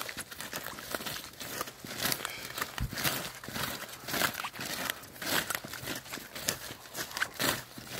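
Flowering plants being stomped and trampled underfoot: a fast, irregular run of crunches and rustles as stems and leaves are crushed.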